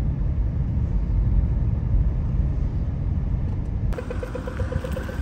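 Steady low rumble of a car's road and engine noise heard inside the cabin while driving. About four seconds in, the sound changes to a brighter, hissier background with a faint rapid ticking over the continuing rumble.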